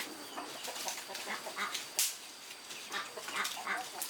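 Farmyard birds, likely chickens, making short calls, along with scattered light clicks and knocks.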